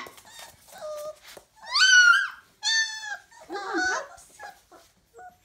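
Entlebucher Mountain Dog puppies, about four weeks old, whimpering and yelping in a string of short, high-pitched cries, the loudest about two and three seconds in, then fading to small squeaks.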